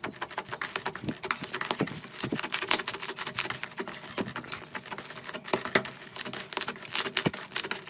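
Slime being squeezed and poked by hand: a dense run of small, irregular crackles and pops.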